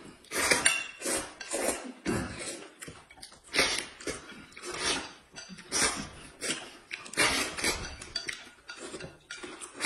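Repeated slurping and chewing of noodles and saucy food eaten with chopsticks, one noisy slurp after another, with chopsticks and dishes clinking.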